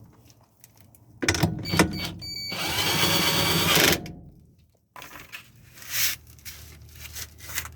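Clicks of parts being handled, then a power drill runs for about a second and a half, its pitch rising, and stops suddenly; more handling clicks follow.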